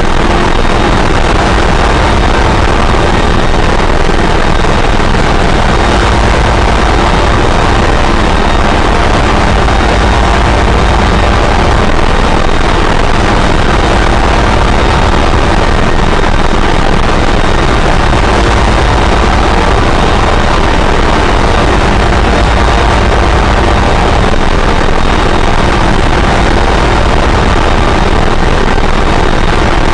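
Harsh noise wall from a drone and harsh-noise recording: a loud, dense, unchanging mass of distorted noise over a heavy low rumble, with faint steady tones buried in it.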